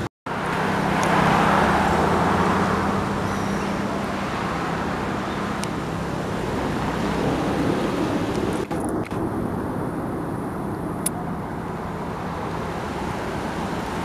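Steady background noise of road traffic, with a steady low hum under it.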